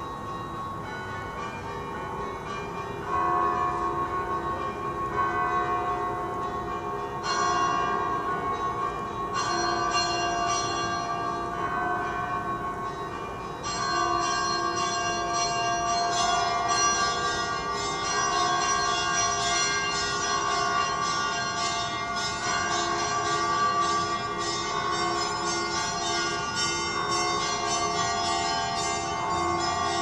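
Church bells ringing continuously, several bells overlapping, rung at midnight to mark Easter. The ringing grows louder in steps over the first half, and later a low bell strikes evenly about twice a second.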